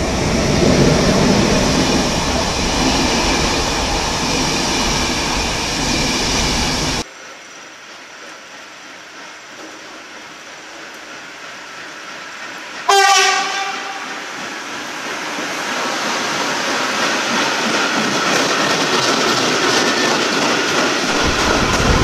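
Electric locomotive hauling passenger coaches passing close, with loud wheel rumble and clatter on the rails, which cuts off suddenly about a third of the way in. After a quieter stretch, a freight train's locomotive sounds one short horn blast, and the rumble of the approaching train then builds toward the end.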